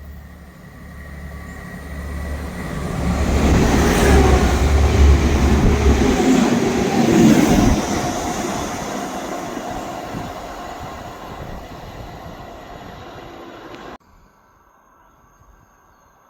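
A diesel train passing, growing louder as it approaches and loudest from about three to eight seconds in with a low engine drone, then fading as it moves away. The sound cuts off suddenly about fourteen seconds in.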